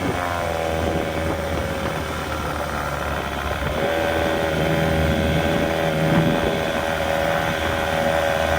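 25 hp Johnson two-cylinder two-stroke outboard motor running under way, now firing on both cylinders. Its pitch rises slightly about four seconds in and then holds steady.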